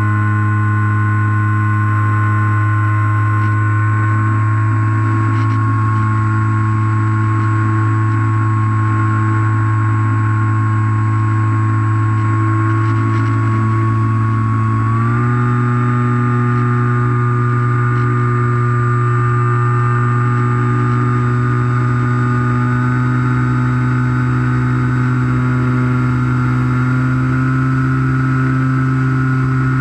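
Electric motor and propeller of a Skywalker foam FPV plane, heard close up from the camera on the airframe, droning steadily at an even pitch in flight. About halfway through the pitch steps up a little as the motor speeds up.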